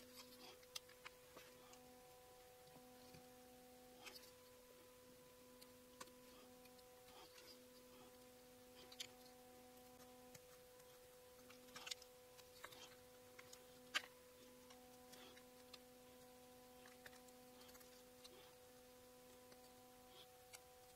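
Quiet, scattered clicks and small scrapes of a utility knife blade paring into a wooden lure body as it is hand-carved, with a sharper snick about twelve and fourteen seconds in. A faint steady hum lies under it.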